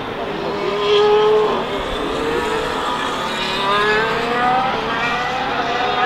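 2022 Formula 1 car's 1.6-litre turbocharged V6 hybrid power unit heard from a distance, its engine note dipping briefly, then rising steadily from about two seconds in as the car accelerates.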